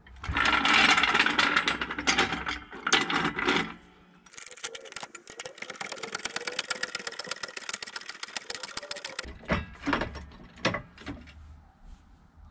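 Trolley jack working under a car on concrete: a loud rough noise for the first few seconds, then about five seconds of fast, even mechanical clicking, then a few separate knocks as the car is lifted.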